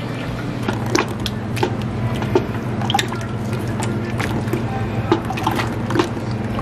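Wooden spatula stirring thick miso sauce in a stainless-steel pot, with wet squelches and irregular clicks against the pot wall as the miso paste is dissolved into the sauce. A steady low hum runs underneath.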